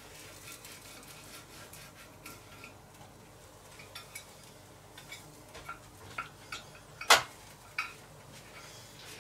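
Quiet clicks and light clatter of hands and utensils at a Tefal OptiGrill contact grill as the next two tortilla pockets go in, with one sharp knock about seven seconds in.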